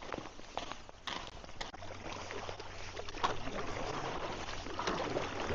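A paddle working in river water among ice floes: splashing with irregular sharp knocks and clicks, slowly growing louder.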